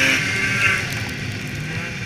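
Polaris snowmobile engine running at trail speed, its whine rising and falling in pitch with the throttle, easing off slightly after about half a second.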